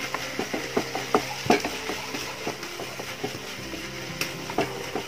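Spatula stirring chopped banana and grated coconut in a non-stick kadai, with irregular short scraping taps against the pan over a steady sizzle of frying in ghee.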